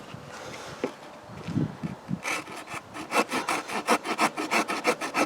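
Small saw blade of a Victorinox multitool cutting across a log. After a couple of soft knocks it settles, about two seconds in, into fast back-and-forth rasping strokes, roughly four a second.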